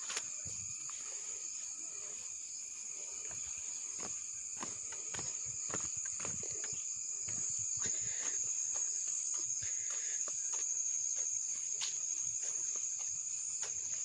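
A steady, high-pitched drone of insects, with irregular crackles and rustles of footsteps and brushing through leafy undergrowth.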